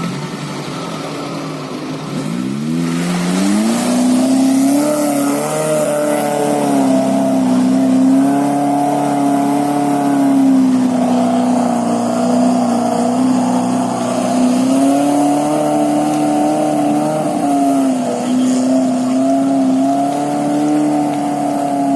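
UAZ Bukhanka van's engine revving up sharply about three seconds in, then held at high revs, its pitch wavering slightly.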